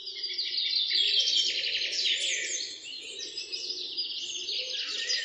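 Many small birds chirping and trilling at once, a dense overlapping chorus that fades in over the first second.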